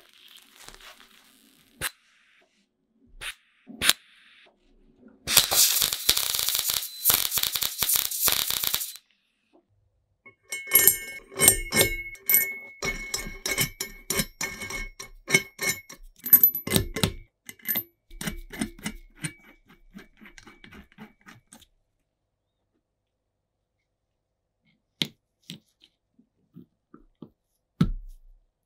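Workshop sounds in several bursts: a loud harsh noise lasting about four seconds, then a long run of metal clinking, clicking and rattling as steel nuts, washers and a ball bearing are fitted onto bolts on a square-tube jig, with a few single clicks near the end.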